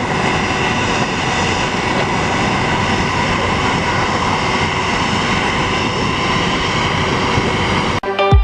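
Airbus A340 jet engines running at takeoff power: a steady rush of noise with several whining tones over it. Near the end it cuts off abruptly into electronic dance music with a heavy beat.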